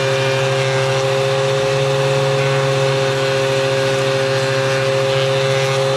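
Power planer running steadily with no board feeding through, a constant motor hum and whine that does not change.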